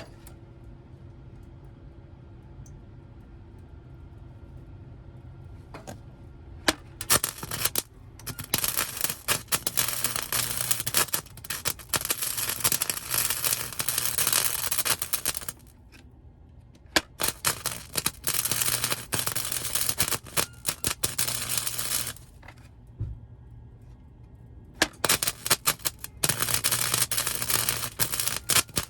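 Welding arc crackling on sheet-metal floor pans in bursts of several seconds: a short one about six seconds in, then longer runs of roughly seven, five and four seconds. A steady low hum fills the gaps between them.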